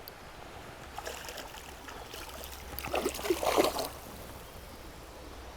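Shallow river water running, with a brief louder splash and slosh about three seconds in.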